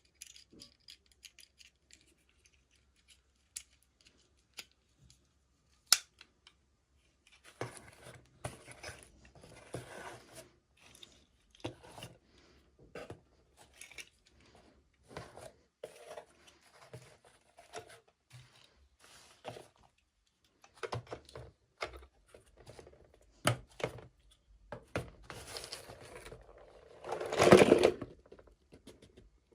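Toy packaging being handled and opened by hand: scattered clicks, snips and short rustles of plastic and cardboard, with one longer, louder rustle near the end.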